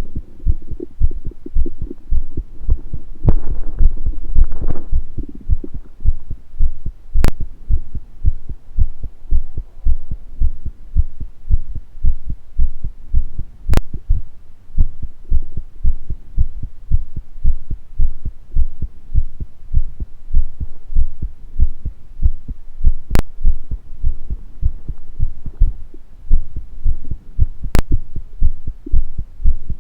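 Human heartbeat picked up close against the body, a steady low thudding pulse at about one and a half beats a second. A brief stomach gurgle comes about three seconds in, and four sharp clicks are scattered through the rest.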